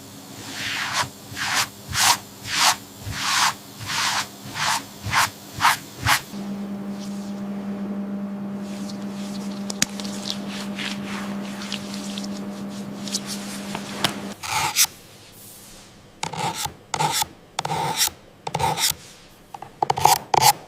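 Rhythmic rubbing strokes, about two a second, for the first six seconds; then a steady low machine hum for about eight seconds; then quicker, irregular strokes near the end.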